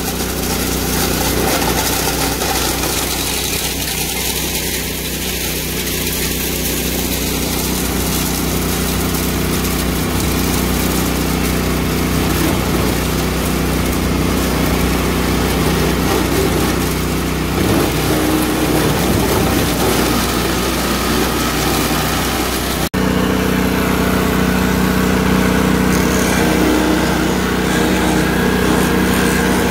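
Small gas-engine 4-inch wood chipper running loudly and steadily while chipping small tree limbs into shavings. Its sound turns rougher and grittier for a few seconds past the middle as branches feed through, and breaks off abruptly for a moment about two-thirds of the way in.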